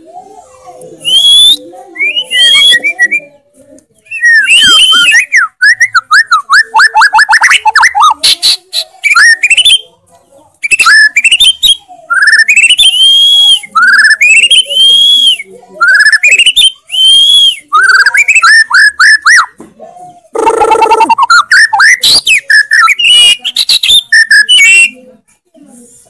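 White-rumped shama (murai batu) singing a loud, varied song: fast trills, then a run of repeated up-and-down whistled phrases about once a second, with a short harsh burst a few seconds before the end and more rapid notes after it.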